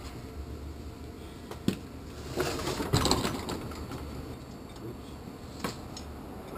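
Metal workshop handling noises: a sharp metal knock about one and a half seconds in, a short burst of rattling and clattering around three seconds in, and another knock near the end. They come from working the engine hoist, its lifting chain and an engine stand.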